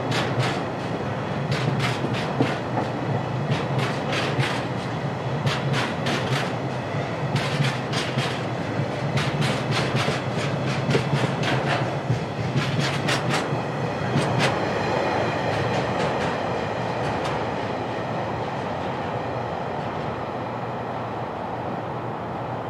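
A freight train of oil tank wagons rolling past, its wheels clicking over rail joints over a steady rumble. About fifteen seconds in the clicking stops and the rumble slowly fades as the train draws away.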